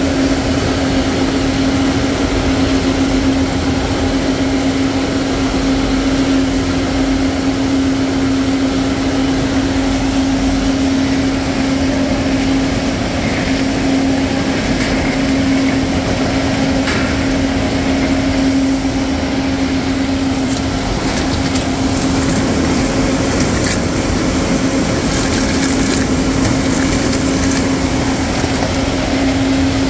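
Steady hum and drone of a crab-processing line's machinery, with a constant tone over a wash of machine noise. A few light clicks and clatters come in the second half.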